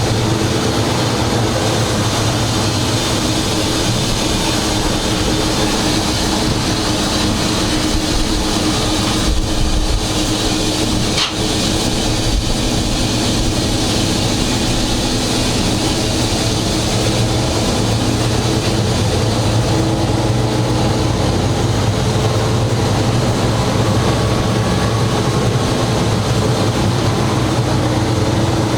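Diesel engine of a GE 80-ton switcher locomotive running steadily under the cab as it rolls along the track, a constant low drone mixed with rumble. A single sharp click comes about eleven seconds in.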